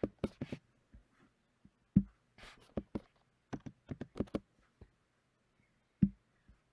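Computer keyboard keystrokes and mouse clicks. A quick run of taps comes at the start, a louder click about two seconds in, another quick run of taps around three and a half to four and a half seconds, and a louder click near six seconds.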